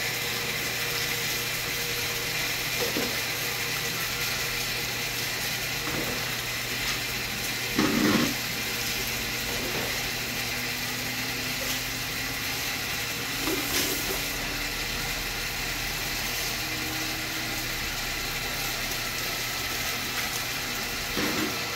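Water running steadily from a hose into a plastic basin over a constant hum, with a few short splashes as water is scooped up and poured over a wet dog, the loudest about eight seconds in.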